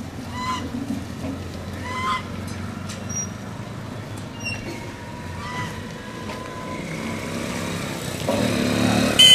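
Domestic goose giving short honks as it walks along behind its owner, with road traffic going past in the background.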